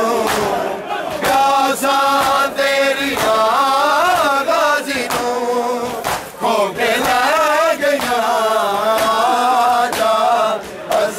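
A group of men chanting a noha, a mourning lament, together in loud wavering unison, with sharp hand slaps of chest-beating matam.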